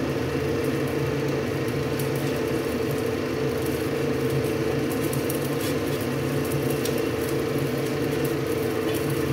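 A steady whirring motor hum over a large stainless-steel pot of water at a rolling boil, with a few faint ticks.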